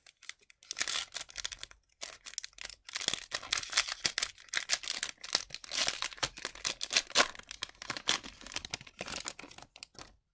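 An Upper Deck MVP hockey card pack's wrapper is torn open and crinkled in the hands: a long run of crackling rustles with a couple of brief pauses.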